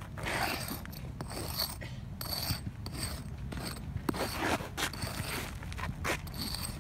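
Small hatchet blade scraping and chopping into dry, packed dirt in repeated short strokes, about two a second.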